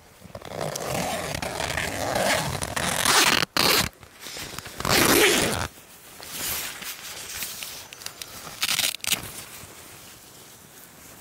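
Tent door zipper being unzipped in several pulls, the loudest about three and five seconds in, with the nylon tent fabric rustling as the door opens.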